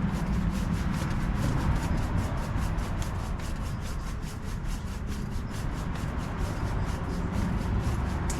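Hand saw cutting through a plum tree branch in rapid, even back-and-forth strokes, several a second.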